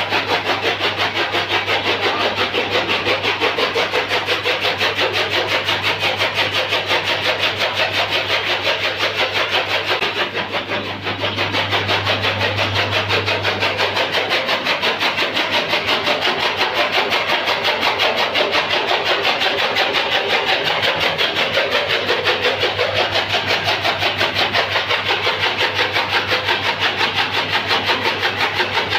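Motor-driven flywheel chaff cutter chopping green fodder: a fast, even chopping rhythm over a steady low hum from the drive, easing briefly about ten seconds in.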